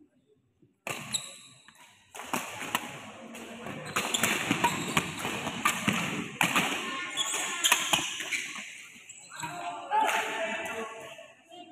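Badminton rally: rackets striking the shuttlecock and players' shoes thudding and squeaking on the court mat, echoing in a large hall. It starts suddenly about a second in and runs on busily until near the end.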